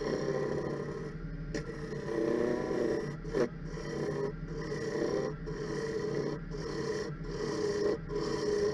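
Gouge cutting into a spinning yew bowl on a wood lathe, hollowing the inside in a run of scraping cuts about a second apart, over the steady hum of the lathe.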